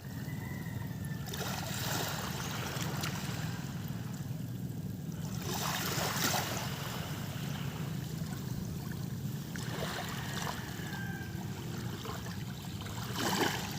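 Sea waves washing in, a swell of noise every few seconds, over a steady low rumble.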